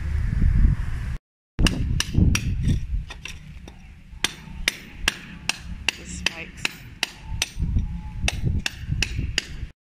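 Hammering: a steady series of sharp, ringing blows, about two to three a second, with a short pause partway through, over a low rumble.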